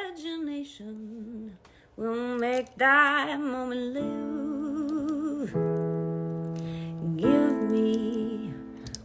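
A woman singing wordlessly, humming the tune with vibrato, over held instrumental chords. A chord rings out about halfway through and fades slowly.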